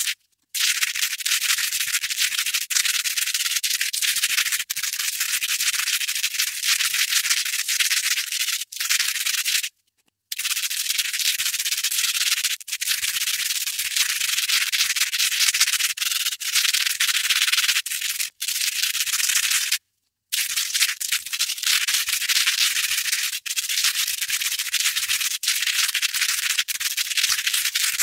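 Velcro hook tape scratched against loop fabric: a continuous, crunchy, scratchy rasp, high in pitch and full of fine crackle. It is broken by three short silences, about a second in, near ten seconds and near twenty seconds.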